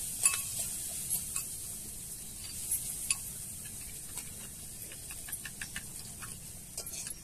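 Spoon ticking and scraping in a small bowl as ground spices are stirred into water, over a faint steady sizzle of potatoes frying in oil in a wok.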